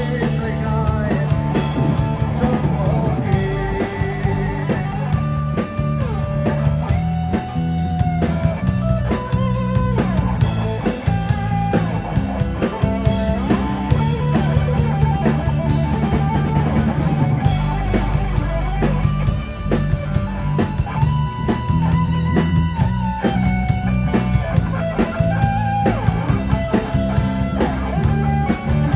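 Live rock band playing an instrumental break: drum kit and bass guitar keep a steady beat under strummed acoustic guitar, while an electric guitar plays a lead line with bending, sliding notes.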